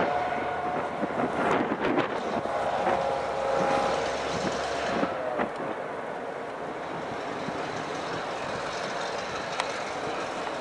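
Two Canadian Pacific diesel locomotives moving slowly along the track. Over the first half there is a held squeal and a few clanks; after that the sound settles into steady running, with one sharp click near the end.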